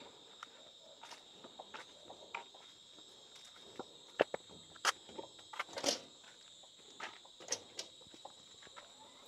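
Faint scattered clicks and light knocks of someone shifting on their feet and handling a parked motorbike, most of them between about four and eight seconds in, over a steady high-pitched drone.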